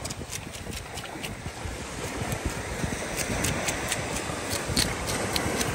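Wind buffeting the microphone at the shoreline, a steady low rumble with gusty swells, over a faint wash of surf and scattered small clicks.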